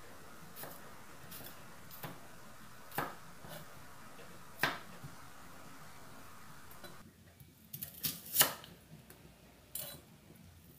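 Kitchen knife knocking and cutting on a wooden cutting board as garlic is peeled and a red onion is cut: a few scattered sharp taps, with the loudest cluster about eight seconds in as the onion is split.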